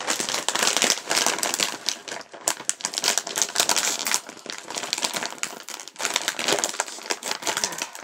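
Plastic snack bag of Yuki no Yado rice crackers crinkling and crackling in rapid, uneven bursts as it is handled and pulled open by hand.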